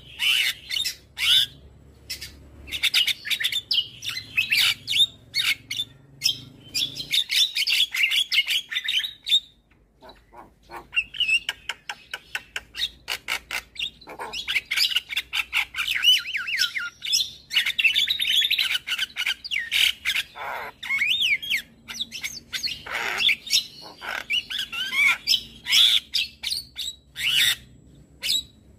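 Javan myna singing a fast, varied stream of chirps, whistles and harsh squawks, with a brief pause about ten seconds in.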